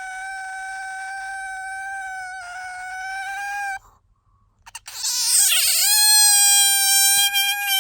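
Asian small-clawed otter giving long, steady high-pitched squealing calls: one held squeal that stops a little under four seconds in, then after a short pause a louder one that wavers as it starts and holds on. This is the whining call the otter makes when sleepy or wanting attention.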